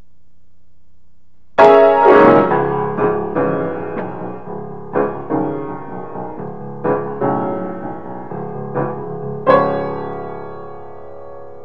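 Solo piano music. A loud chord comes in about a second and a half in, followed by a slow series of single struck notes and chords, each left to ring, and a last strong chord near the end that fades out.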